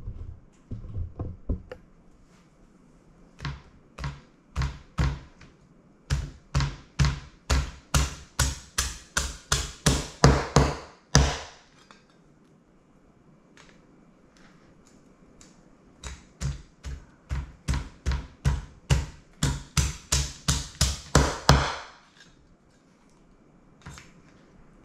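A spoon stirring stir-fry sauce in a bowl, knocking against the sides in a rhythm that quickens to a rapid clatter and then stops, twice.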